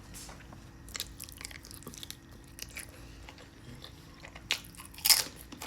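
A person chewing and biting food close to the microphone: soft wet clicks and crunches, with one louder crunch about five seconds in.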